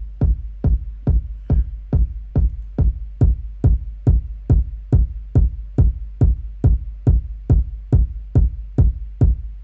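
Electronic kick drum looping in a drum machine pattern, hitting evenly a little over twice a second, each hit a short click on top of a deep low end.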